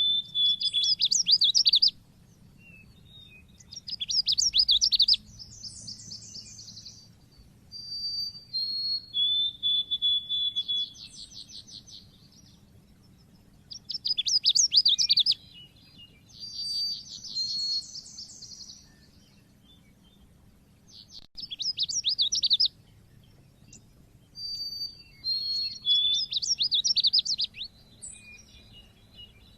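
Pleci (white-eye) singing in the loud, chirpy 'cit keres' style: high-pitched phrases of fast trills and short whistled notes, each a second or two long, repeated every few seconds.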